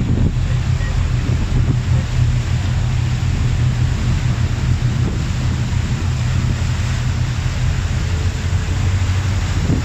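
Steady low drone of a passenger ferry's engines under way, over the hiss of its churning propeller wash, with wind buffeting the microphone.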